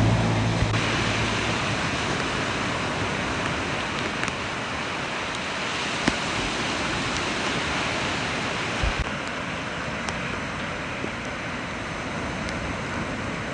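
Sea surf rushing and breaking on the shore in a steady roar of noise, high waves driven by a tropical storm.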